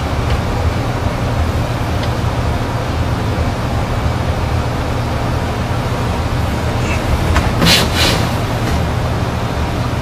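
Steady low machine hum and rumble, with two short bursts of hiss about seven and a half and eight seconds in.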